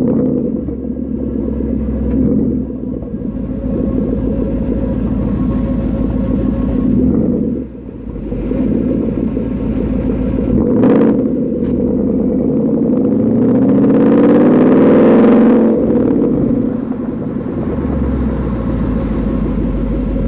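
2013 Mustang GT's 5.0-litre V8 through a Borla S-Type axle-back exhaust, heard at the tailpipe while driving: a steady low rumble that dips briefly about a third of the way in, then swells with climbing revs on acceleration about two-thirds in before settling back.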